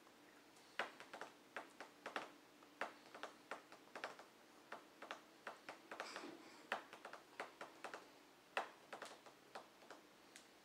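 Construction work outside the home: irregular sharp knocks, like hammering, two or three a second, from about a second in until near the end.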